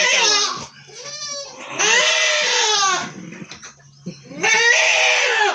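Goats bleating loudly, several wavering calls one after another, the longest about two seconds in and another near the end.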